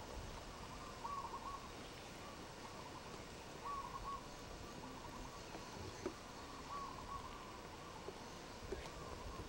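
A bird calling in the jungle: a short cluster of notes repeated about every three seconds, over a faint steady background hiss, with one sharp click about six seconds in.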